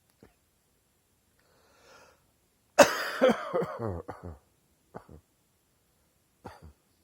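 A person's chesty cough: a faint breath in, then a fit of several coughs lasting about a second and a half, followed by two short single coughs.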